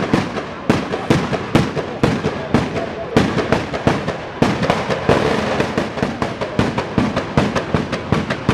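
Firecrackers going off at street level in a rapid, irregular string of sharp bangs over a continuous crackle, the bangs coming thicker and faster from about halfway through.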